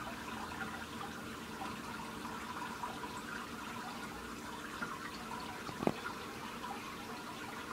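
Steady trickle of water from a turtle tank's aquarium filter, with one sharp knock about six seconds in.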